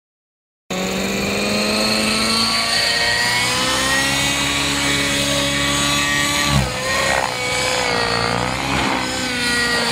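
Nitro radio-controlled helicopter in flight: the engine and rotor whine with several tones that shift and waver in pitch as it manoeuvres, with a brief dip and change in pitch about six and a half seconds in. The sound starts abruptly just under a second in.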